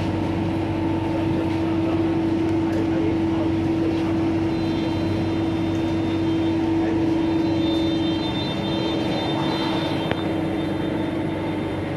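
MTR South Island Line S-Train standing at a station platform: a steady low hum from the train that weakens after about eight seconds. A thin, high electronic tone runs from about four seconds in to about ten.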